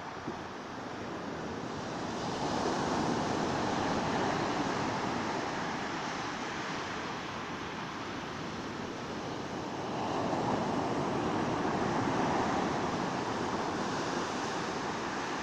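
Sea waves washing onto the shore, the surf swelling twice, about three seconds in and again about ten seconds in, then easing back.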